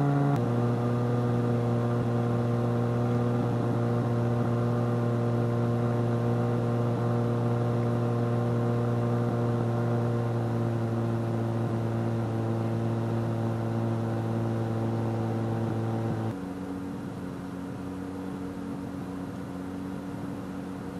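Steady drone of a Wag-Aero light aircraft's engine and propeller, heard from inside the cockpit in flight on a landing approach. Its pitch steps down a little under a second in, and it drops again in pitch and loudness at about sixteen seconds.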